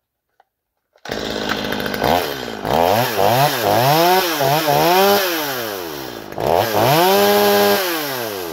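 Stihl two-stroke chainsaw running unloaded. It comes in about a second in, is revved up and down several times, then is held at full speed briefly before dropping back toward idle. The freshly refitted chain is being spun hard so that its momentum shears burrs off the drive links that keep it from seating in the bar groove.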